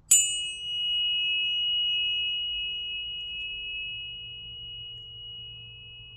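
Planetary tuning fork for Pallas Athena struck once: a bright metallic ping whose high overtones die away within about a second, leaving a steady high ringing tone that slowly fades.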